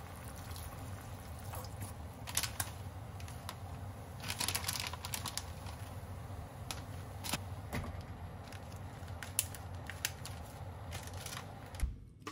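Small pot of nagaimo and bacon simmering with a faint bubbling over a steady low hum, as white dashi is poured in and salted kombu is dropped on top, giving a few short splashy rustles and scattered light clicks and taps.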